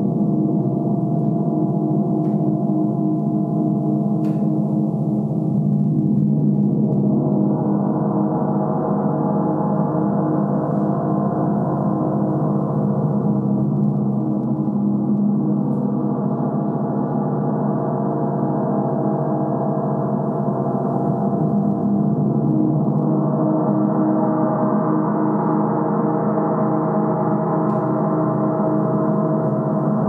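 A large 60-inch symphonic gong played continuously, a dense sustained wash of many overlapping tones. It swells brighter twice, about a quarter of the way in and again past the middle, and eases back in between.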